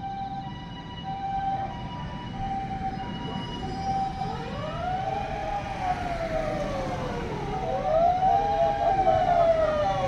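Japanese ambulance siren on an emergency run: the two-tone high-low "pee-poh" alternating throughout, joined about four seconds in by a wail that rises and falls about every three seconds and grows louder as the ambulance approaches. Road traffic rumbles underneath.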